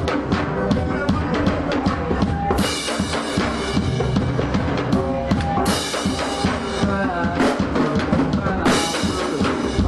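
Live band playing an instrumental stretch with the drum kit out front: steady kick and snare hits, with a cymbal crash about every three seconds.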